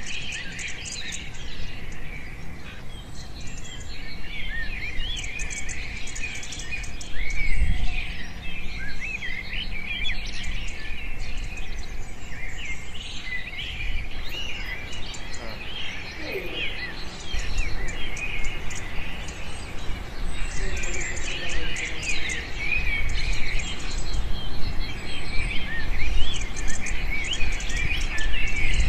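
Small birds chirping and twittering continuously, many overlapping quick calls, over a low outdoor rumble, with one dull thump about seven seconds in.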